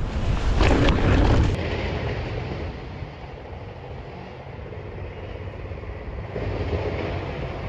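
Mountain bike being ridden on a dirt trail: tyres rolling over dirt, with wind buffeting the microphone. Loud for the first second and a half, then quieter, growing louder again about six seconds in.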